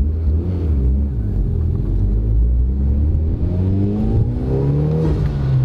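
Mitsubishi Lancer Evolution X's turbocharged 2.0-litre four-cylinder, heard from inside the cabin, pulling low for the first couple of seconds, then revving up under acceleration from about two and a half seconds in. The revs drop about five seconds in as the throttle closes, and the aftermarket TurboXS blow-off valve vents with a slight chirp.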